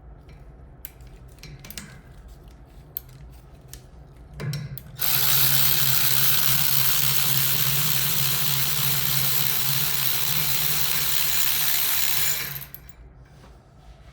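A few light clicks and taps, then a power tool runs steadily for about eight seconds and stops.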